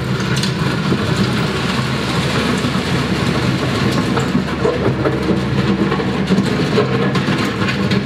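An RK 55 compact tractor's diesel engine running steadily as it pulls a land plane over a gravel driveway, with a continuous clatter and crunch of gravel under the blade.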